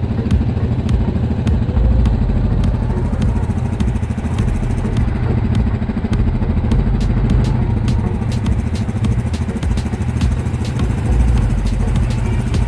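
ATV (quad bike) engine running steadily under way, with frequent short, sharp ticks and clatter over the engine note.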